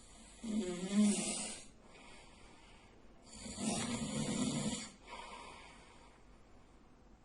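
A man snoring heavily in his sleep: two loud snores about three seconds apart, each followed by a softer breath.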